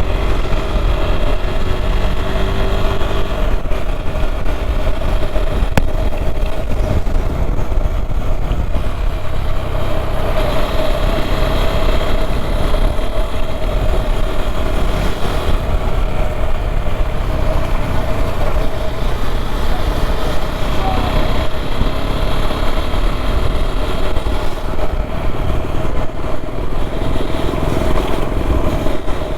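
KTM Duke 390's single-cylinder engine running steadily at cruising speed while riding, with a brief rise in pitch in the first few seconds.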